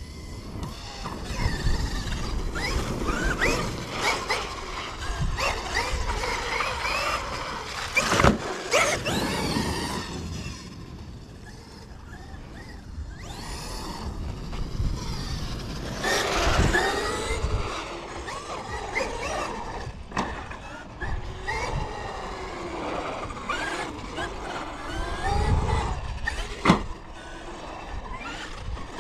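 Traxxas XRT electric RC monster truck driving hard over grass, dirt and concrete. Its brushless motor and drivetrain whine, rising and falling over and over with the throttle, over tyre and dirt noise. Several sharp knocks come from bumps and landings.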